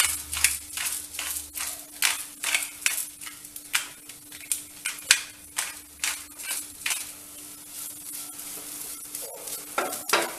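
A hand-twisted pepper mill grinding black peppercorns into a hot pan, a quick run of grinding strokes about two a second that stops around seven seconds in. Near the end comes a brief burst of stirring in the pan.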